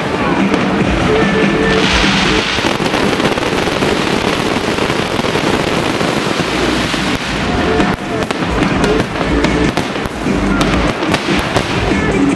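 Fireworks going off in a continuous barrage of bangs and crackling, with music playing underneath.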